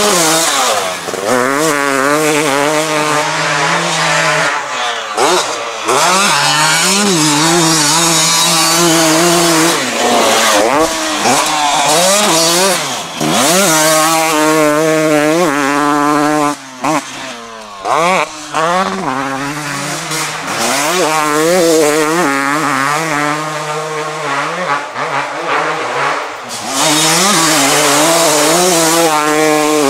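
A 2023 KTM 250 SX's single-cylinder two-stroke engine being ridden hard. Its pitch climbs and falls over and over as the rider accelerates, shifts and backs off the throttle, with a few brief drops where the throttle shuts about halfway through.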